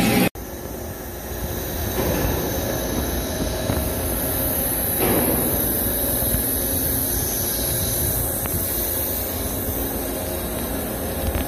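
Steady machine-shop background noise: a low rumble with a high hiss over it and no distinct events. It comes in after a brief dropout just after the start.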